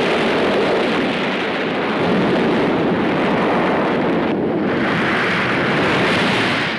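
Film sound effects of a volcanic eruption: a loud, steady rushing noise, briefly thinning a little past the middle.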